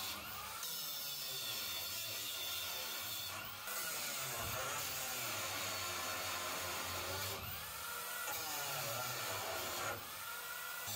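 Cordless angle grinder with a cutting disc grinding down steel bolts stuck in a school bus floor: a steady high whine with metal-on-metal grinding. The sound shifts briefly about every three to four seconds as the disc is lifted and set back on a bolt.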